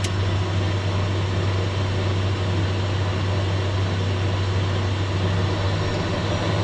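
Cessna Citation Mustang cockpit with one Pratt & Whitney PW615F turbofan idling after a good start: a steady even hiss over a low, constant hum.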